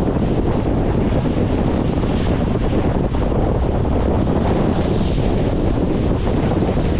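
Wind buffeting the camera microphone: a steady, loud low rumble, with choppy water splashing against a concrete bank.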